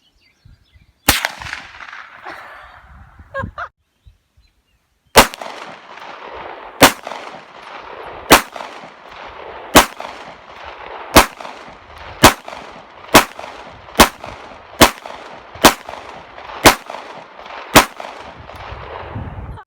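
Gunshots: a single shot, then a long string of about twelve shots fired one after another, coming a little faster toward the end.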